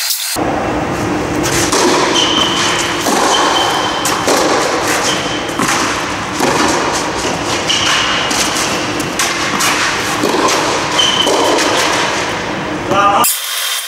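Tennis rally on an indoor clay court: repeated thuds of racket strikes and ball bounces, echoing in a large air-dome hall over a steady background rush.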